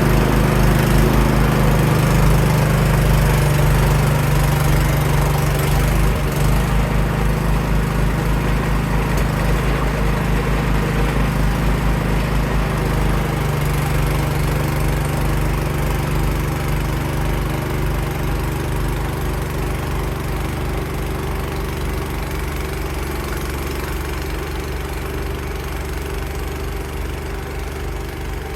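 Cub Cadet 524 snowblower's small gasoline engine running steadily after its carburetor was cleaned and a stuck choke freed, gradually getting quieter.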